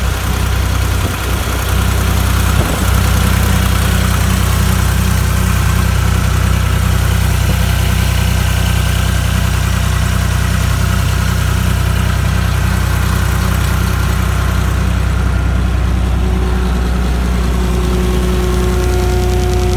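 John Deere 240 skid steer's diesel engine running steadily at idle. About three-quarters of the way through, a steady whine joins the engine sound.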